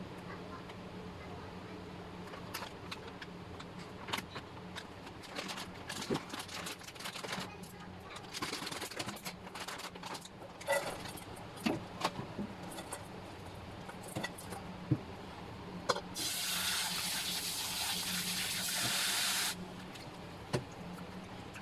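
Plastic packet of dried mushrooms crinkling and rustling as the dry pieces are tipped into a stainless steel bowl, with scattered clicks and rattles. About two-thirds of the way through, the kitchen tap runs into the bowl for about three seconds and cuts off, and a faint low hum lies underneath.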